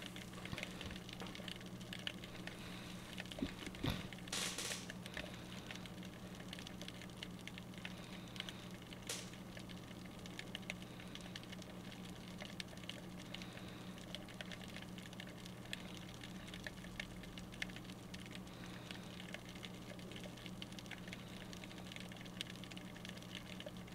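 Underwater ambience heard through an action camera's waterproof housing: dense faint crackling and clicking over a steady low hum, with a brief hiss about four seconds in.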